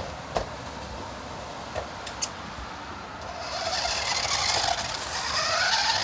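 A toy remote-control car's small electric motor whining and revving as it drives through snow, starting about three seconds in, its pitch rising and falling. A few light clicks come before it.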